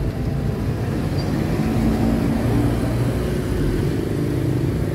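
A motor vehicle engine running steadily at low revs, a continuous low hum.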